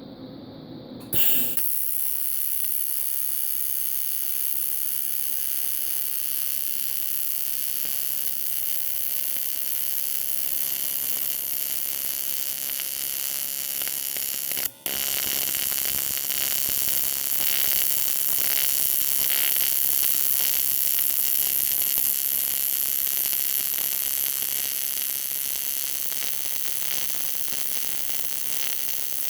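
TIG welding arc on aluminium, a steady buzzing hiss that strikes suddenly about a second in. It cuts out for an instant about halfway through, then picks up again and holds.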